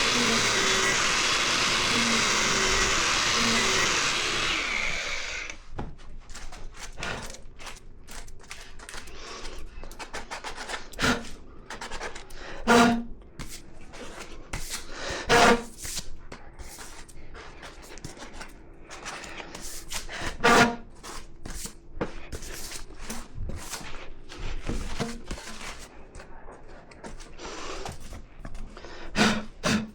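A power tool runs loudly and winds down about five seconds in. Then come tools and parts being handled, with scattered clicks and knocks and several ringing metallic clanks.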